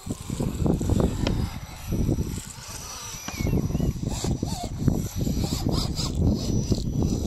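RC rock crawler working its way over rock: uneven scraping, rubbing and grinding of tyres and chassis on stone, rising and falling in fits.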